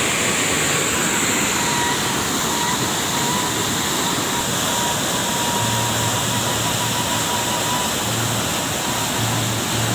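Waterfall pouring steadily, an unbroken rushing of water that fills every pitch at an even level.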